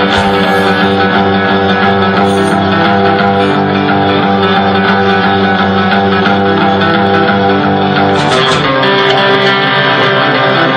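Loud live noise music: a dense, steady wall of distorted, amplified guitar-like drone with many held tones, its texture shifting about eight seconds in.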